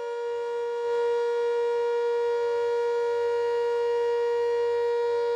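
Emergency alert tone: one steady, unwavering pitch with many overtones, a little louder from about a second in.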